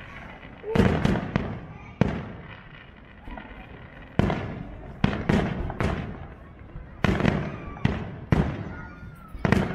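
Aerial firework shells bursting in the sky: a dozen or so sharp bangs at irregular intervals, several coming in quick succession, each trailing off before the next.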